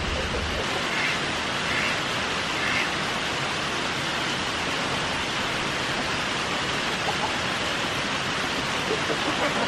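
Steady rain falling, an even hiss with no change in level.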